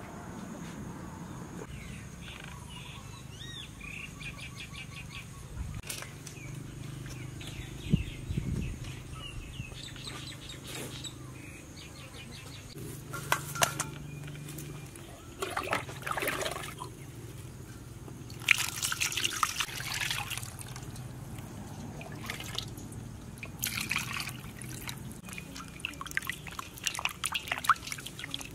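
Water splashing and sloshing in a metal bowl as raw pork is washed by hand, in irregular bursts through the second half, over a steady low hum.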